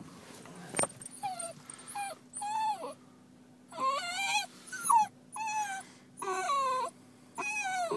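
A Basenji dog whimpering and whining in a string of short, high-pitched cries, each bending down in pitch, softer at first and louder from about halfway. It is the distressed whining of a dog left behind by her owner.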